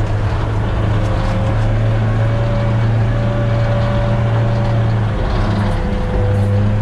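Shatun all-terrain vehicle's engine running steadily while driving, heard from inside the cab, with a brief dip in the engine note about five seconds in.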